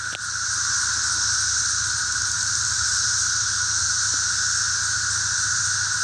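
Mass chorus of 17-year periodical cicadas: a loud, steady, unbroken drone in a middle and a higher pitch band.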